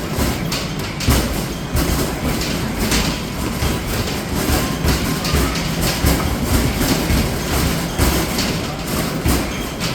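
Arcade basketball machine in rapid play: a continuous stream of irregular thumps and rattling as basketballs hit the backboard and hoop and roll back down the return ramp.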